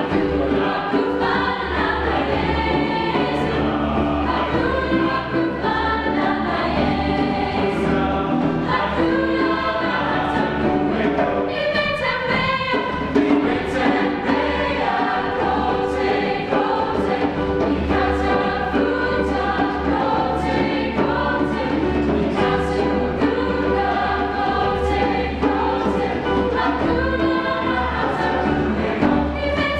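Mixed chamber choir singing a traditional African song in Swahili, many voices together in harmony without a break.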